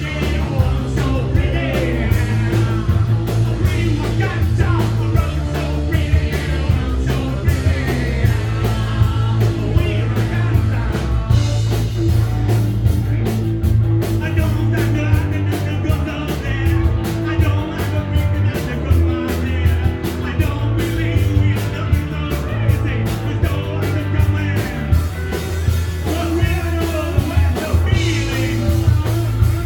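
Punk rock band playing live: electric guitar, bass and fast drums, with a singer's voice over them.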